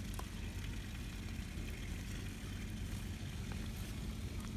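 Steady low machine hum with an even drone, like a motor running, and a few faint ticks over it.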